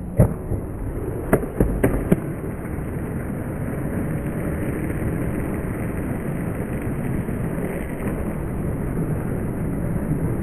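Skateboard: a few sharp clacks of the board in the first two seconds, then the steady rumble of its wheels rolling over asphalt.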